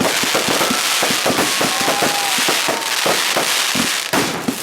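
Fireworks going off: a dense run of sharp bangs and pops, several a second, over continuous crackling.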